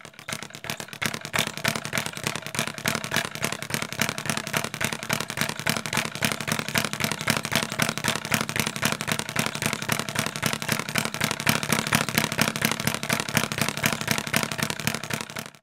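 Intro soundtrack of a rapid, dense crackling patter, many sharp clicks a second, building up over the first second and cutting off suddenly at the end.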